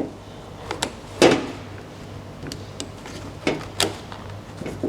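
Sharp clicks and light knocks of a Tesla Model S door handle assembly being handled and taken apart to remove its faulty micro switch. There are about five clicks, the loudest about a second in, over a low steady hum.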